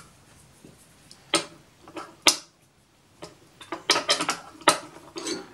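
A hand tool working the pivot-locking bolt on a 4x6 bandsaw's swivelling head as the bolt is loosened: scattered sharp metallic clicks and knocks, the sharpest a little past two seconds in, with a quick run of clicks around four seconds.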